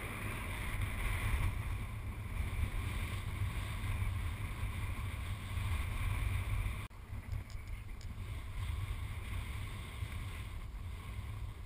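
Strong wind buffeting the camera microphone: a steady low rumble with a hiss on top. It drops suddenly about seven seconds in, then carries on a little quieter.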